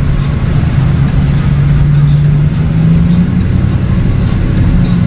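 Car engine drone and road rumble heard from inside the car while driving slowly. The low hum rises a little in pitch partway through, then settles back near the end.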